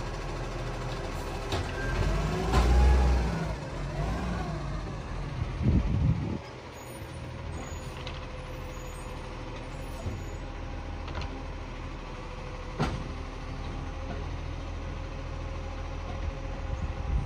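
Garbage truck's diesel engine running, louder with wavering pitch glides two to four seconds in and a short loud burst about six seconds in, then idling steadily with a few sharp clicks.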